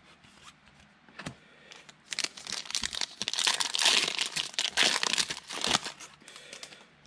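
Foil wrapper of a Panini Prizm football card pack crinkling loudly as it is torn open and pulled apart for about four seconds, after a few light clicks of handling.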